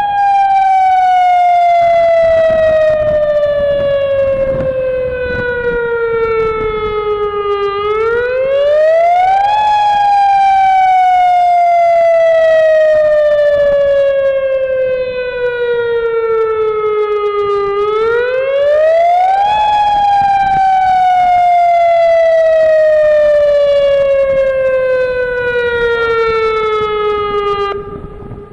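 Civil-defence warning siren sounding the alert for an earthquake drill: its pitch climbs quickly, then falls slowly over about eight seconds, and the cycle repeats about every ten seconds.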